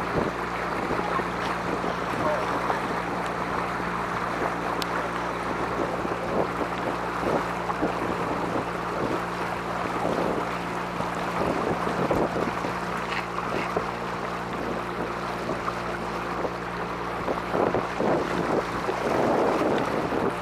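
Tour boat's motor running steadily under way, with water and wind rushing past.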